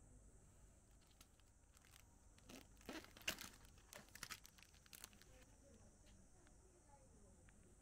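Packaging being handled: a couple of seconds of crinkling and tearing noises starting about two and a half seconds in, against near silence.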